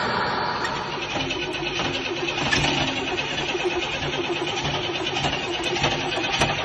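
1989 Pontiac Firebird's engine being cranked by the starter in a steady repeating rhythm without firing: the car turns but won't start.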